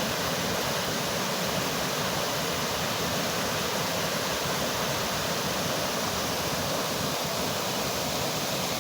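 Waterfall: water falling and rushing in a steady, even roar of white water.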